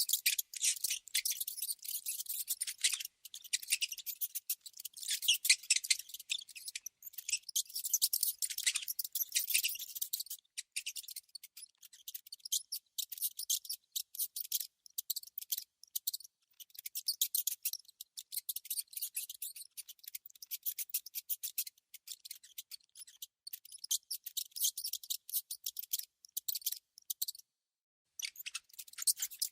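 Small rodent sounds: a dense run of rapid, high-pitched clicks and scratchy chittering, broken by a brief pause near the end.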